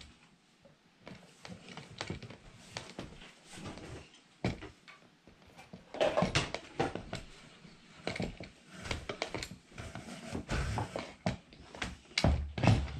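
Hand-crank apple peeler-corer-slicer being turned through an apple: irregular metallic clicks and knocks from the crank and gearing, with the scrape of the blades paring and cutting the fruit, busier from about halfway.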